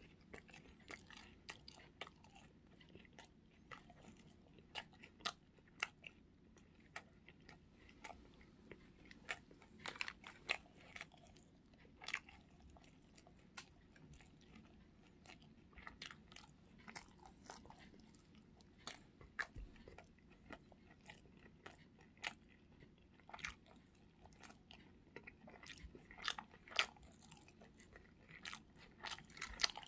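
Close-up eating sounds: irregular crisp crunches and chewing of sauce-glazed fried chicken and rice cakes.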